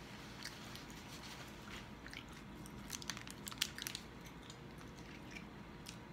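Faint chewing and mouth sounds. About three and a half seconds in comes a quick cluster of sharp plastic clicks as the screw cap of a plastic sports-drink bottle is twisted open.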